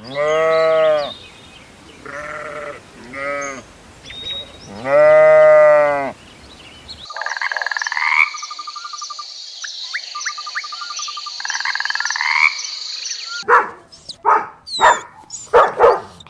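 A bleating farm animal calls four times, the last call the longest and loudest. Then comes a chorus of frogs croaking in pulsed trills over a steady high whine. Near the end, a quick run of sharp clicks and short calls cuts in.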